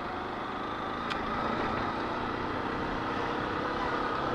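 Motorcycle engine running steadily as the bike rides along, growing slightly louder, with a short sharp click about a second in.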